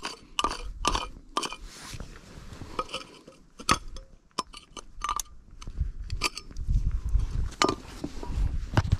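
Metal digging tools scraping and tapping against rock and loose stones while a crack in the rock is dug out: a run of sharp clicks, clinks and knocks at uneven intervals.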